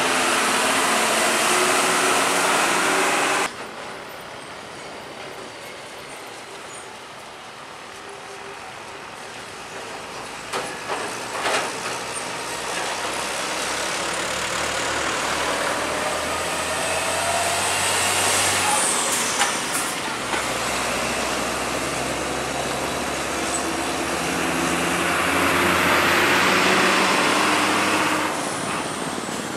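Heavy diesel trucks passing on a highway: engines running with loud tyre and road noise, in shots cut together so the sound drops abruptly about three and a half seconds in. A short sharp hiss comes near the middle, like an air brake.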